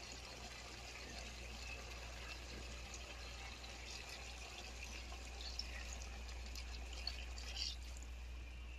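Water being poured into a pot of chicken and bottle gourd curry, a steady splashing hiss over a low constant hum, with a few faint clicks in the second half.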